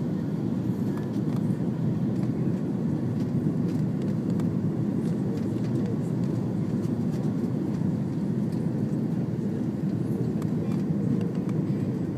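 Steady low roar of engines and rushing air inside an Airbus A330 cabin, heard from a window seat during the descent to land.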